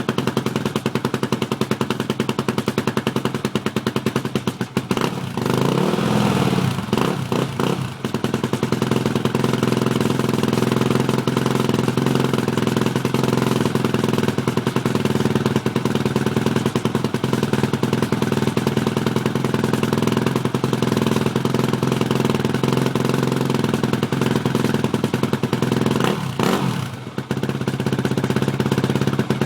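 Yamaha YZF 250 motorcycle engine running steadily, revved briefly about six seconds in and again a few seconds before the end.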